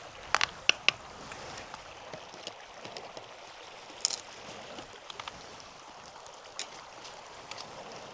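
Steady rush of a flowing stream, with a handful of sharp clicks and clinks: several in quick succession within the first second, then single ones every second or so.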